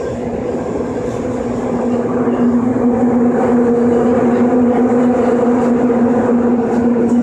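Tokyu 8590 series subway train running through a tunnel, heard from inside the car: wheel and motor rumble with a steady hum, getting louder about two seconds in.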